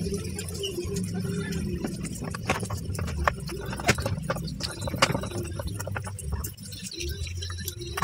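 Irregular clicks and taps of a screwdriver and hard plastic parts as a washing machine's drain selector cam is fitted back into its housing, over a low steady rumble.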